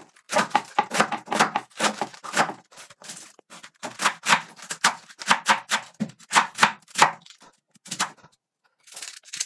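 Kitchen knife chopping raw cabbage on a wooden cutting board: a steady run of sharp strokes, about three a second, with a short pause near the end.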